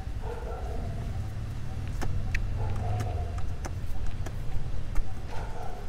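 Low rumble of a passing motor vehicle, swelling to its loudest about three seconds in and then easing, with a few sharp clicks.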